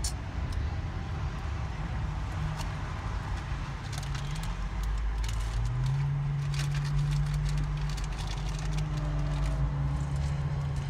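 Car engine and road noise heard from inside a moving car, the engine note shifting about halfway through and then holding steady, with scattered light clicks and rattles.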